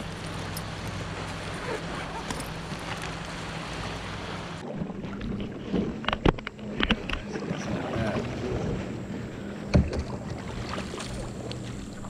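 Wind buffeting the microphone of a canoe out on open water. About five seconds in, the sound changes to water slapping and lapping at the canoe's hull as it moves, with a few sharp knocks against the boat, the loudest about six and ten seconds in.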